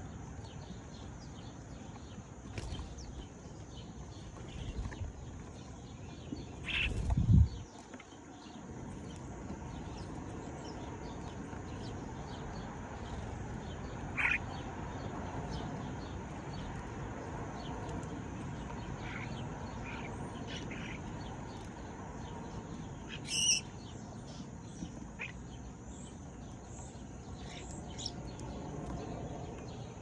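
Sparrows chirping now and then: short, scattered high calls over a steady background hiss, the clearest about two-thirds of the way through. A loud low thump about seven seconds in.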